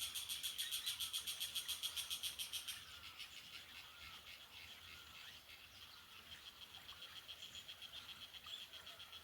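Frogs calling in a rapid, evenly pulsed high trill, louder for the first few seconds and then fainter.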